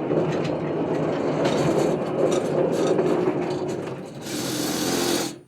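Norwood portable band sawmill running steadily, engine and blade together. A brighter hiss comes up about four seconds in, then the sound cuts off abruptly just before the end.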